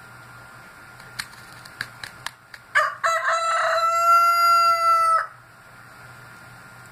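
Rooster crowing once: a single cock-a-doodle-doo lasting about two and a half seconds, held steady at the end and cut off abruptly. A few short sharp clicks come just before it.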